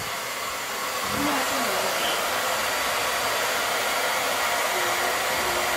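Steady rushing noise of a running air-moving appliance, even and unbroken.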